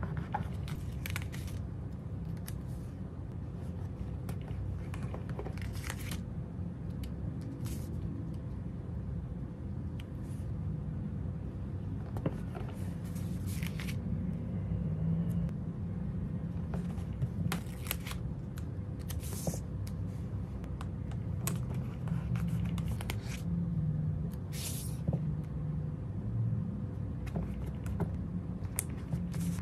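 Stickers being peeled off their sheets and pressed into a paper planner with tweezers: scattered short rustles and crinkles of sticker paper and light taps of the tweezers, over a steady low hum.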